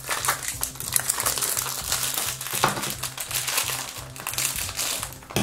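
Crinkling of a foil blind-bag wrapper as it is handled and cut open with scissors, over background music with a steady low beat.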